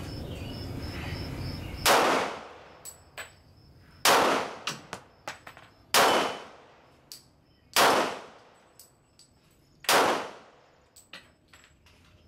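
Five pistol shots fired slowly, about two seconds apart, each with a short ringing echo, and a few fainter clicks between them.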